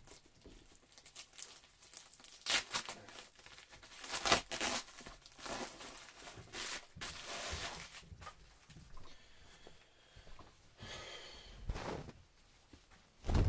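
White plastic mailer bag being torn open and crinkled by hand: a run of irregular ripping and rustling noises.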